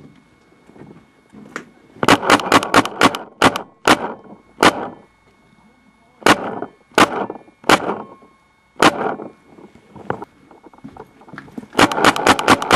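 Paintball marker firing: a rapid string of about eight shots, then single shots spaced about a second apart, and another quick burst near the end.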